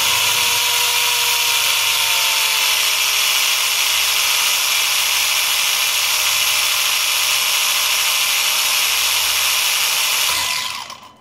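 Losi Mini 8IGHT-T RC truck's stock electric motor and drivetrain running flat out with a loud, steady, high-pitched whine, then winding down and cutting out about ten and a half seconds in as the ESC goes into protect mode. The owner suspects the motor, the ESC or the batteries.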